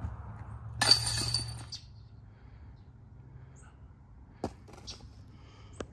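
Chains of a metal disc golf basket jangling as a putted disc strikes them, a loud jingle lasting about a second. Two short sharp clicks follow later.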